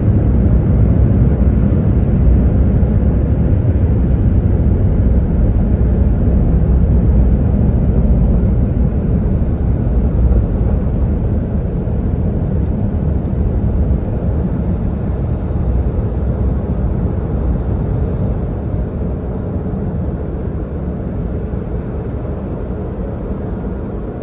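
Automatic car wash air dryers blowing, heard from inside the car as a steady rushing rumble that fades over the last few seconds.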